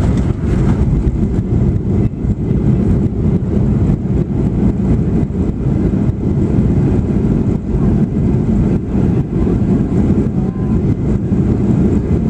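Airliner cabin noise as the plane rolls along the runway: a loud, steady rumble of engines and wheels on the tarmac.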